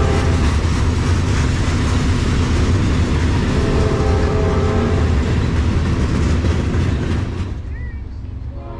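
Freight train of covered hopper cars rolling past close by: steel wheels clattering and rumbling on the rails. The noise drops away about seven seconds in as the last car passes.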